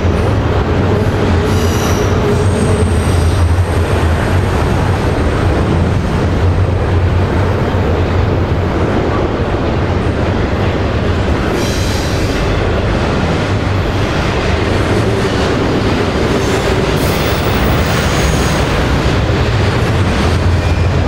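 Freight train rolling past in a steady, loud rumble of cars on the rails. Brief high-pitched steel wheel squeals come and go: about two seconds in, around twelve seconds, and again around seventeen seconds.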